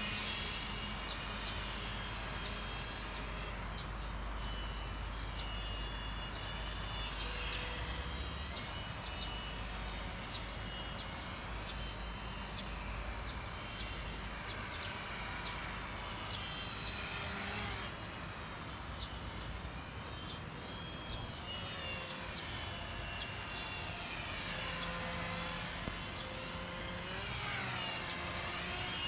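Motor and propeller of a homemade radio-controlled model airplane in flight: a thin whine that rises and falls in pitch again and again.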